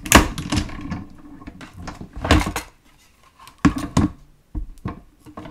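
Clear plastic cutting plates of a hand-cranked die-cutting machine clacking and knocking as they come off the machine and are lifted apart. A loud clack right at the start, then several more knocks spread over the following seconds.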